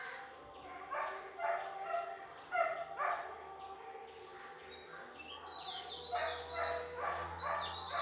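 A dog barking several times, with birds calling.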